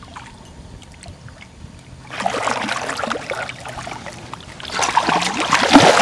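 A hooked muskie thrashing at the surface beside a boat: a burst of splashing about two seconds in, then louder, heavier splashing from about five seconds in.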